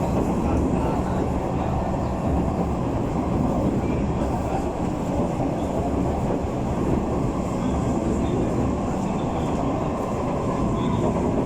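Steady, even low rumble of heavy vehicles in motion, with no distinct knocks or changes.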